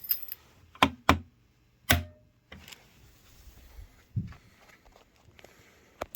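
A few sharp clicks and knocks of handling: three in the first two seconds, then a duller thump a little after four seconds and a faint click near the end, with quiet between.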